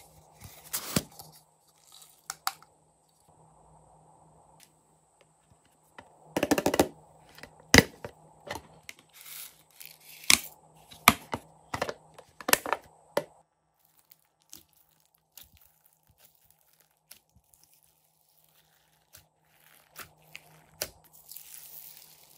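Hard plastic toy containers being handled and opened over a tray of slime: a string of sharp clicks and crackles, thickest in the middle. Near the end comes softer crackling as slime full of foam beads is pulled and stretched.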